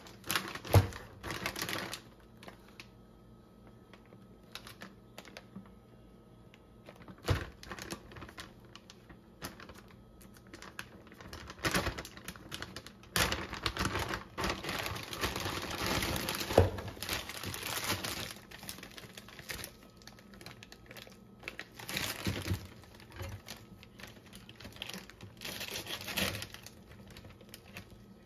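Food packaging being handled on a countertop: scattered taps, clicks and knocks, with several longer stretches of plastic and paper bag crinkling.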